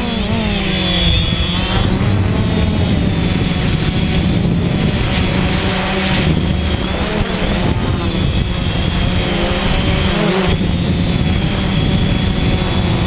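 DJI Phantom quadcopter's electric motors and propellers running in flight, heard from the drone's onboard camera: a steady hum with a high whine, the pitch wavering slightly as the drone manoeuvres.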